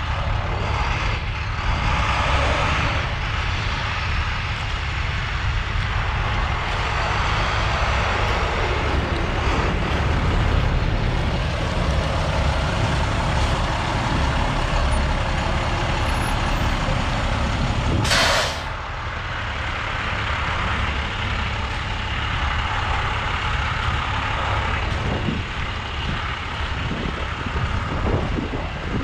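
2006 International chipper dump truck's diesel engine idling steadily, with one short hiss of air released about two-thirds of the way through.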